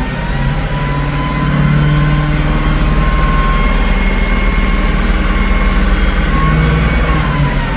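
Ford 6.2 V8 gasoline engine in a 2017 E450 van held at about 2000 RPM, running steadily, then falling back toward idle near the end. The engine has a mild misfire, which the mechanic says can be heard and felt but is not severe.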